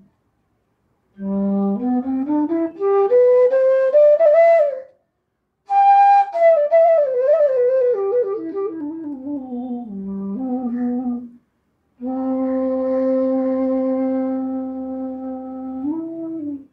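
A Punam Flutes C bass bansuri (bamboo flute) being played solo: a run of notes climbing from its low register, a pause, then a run falling back down, a short phrase, and a long held low note that steps up a little near the end.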